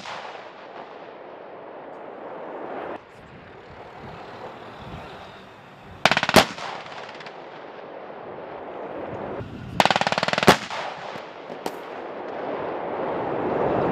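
Two short bursts of machine-gun fire, about six seconds in and again about ten seconds in, the second ending in one sharp loud shot, over a low steady background noise.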